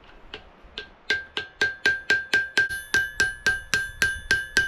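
A hammer tapping on metal in a quick steady rhythm, about four strikes a second, each ringing on the same high note; the strikes grow louder about a second in.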